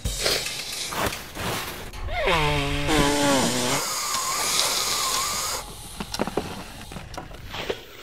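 A man with a heavy head cold makes nasal groans that slide down in pitch, then gives a long, wavering nose blow into a tissue, followed by a few short clicks.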